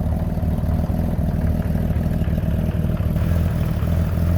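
1979 Honda CBX's air-cooled inline-six engine running steadily at idle through its reproduction Delkevic exhaust, just after being started.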